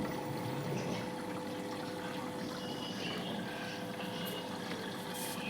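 Water running into an LG front-load washing machine as it fills, a steady rush of water with a steady hum under it.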